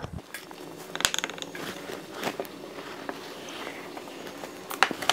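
Wood glue being squeezed from a plastic squeeze bottle onto a wooden bracket, a faint sticky crackle with a few light clicks and taps of handling, the clearest about a second in and near the end.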